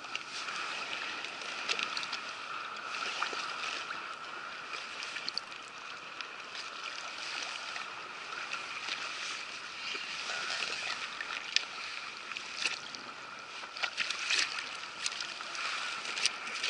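Water sloshing and lapping against a kayak hull in a light chop, with scattered small clicks and knocks.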